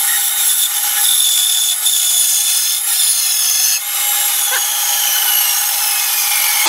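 Delta benchtop band saw running and cutting through a thick wooden board, a steady sawing noise with a few small clicks.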